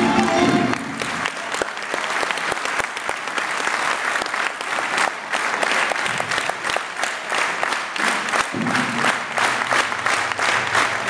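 Audience applauding in a hall. The live folk band's music stops about a second in, and the clapping carries on on its own.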